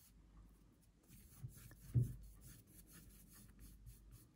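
Faint scratchy rubbing of a large brush working oil paint onto cotton canvas in repeated strokes, with a soft low bump about two seconds in.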